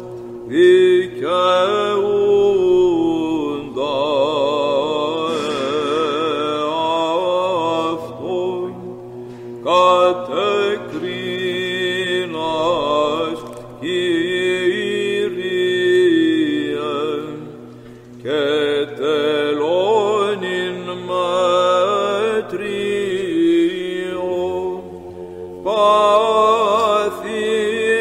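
Byzantine chant by the monks: a chanted melody winding through long ornamented phrases over a steady low held drone (the ison). The drone drops to a lower note about two-thirds of the way through.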